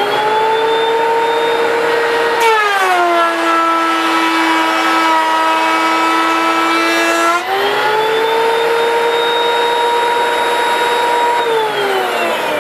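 DeWalt DW734 benchtop thickness planer's cutterhead motor running with a high whine. About two and a half seconds in the pitch drops as a molding strip feeds through and the cutters take a 1/16-inch pass. It climbs back about five seconds later as the board clears, then near the end falls away as the planer is switched off and winds down.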